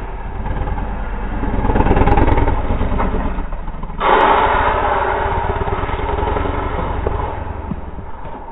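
Harley-Davidson V-twin motorcycle engine under hard throttle as the bike wheelies past. It swells to a peak about two seconds in, jumps suddenly louder at about four seconds, then fades as the bike pulls away.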